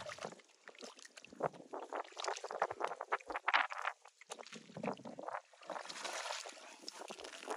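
Hands splashing and squelching in shallow muddy water while grabbing a catfish, in irregular bursts.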